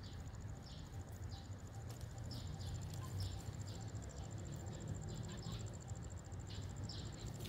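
Short, high, falling chirps repeating about one or two times a second, over a steady, rapid, high-pitched insect trill that cuts off at the very end, with a low rumble underneath.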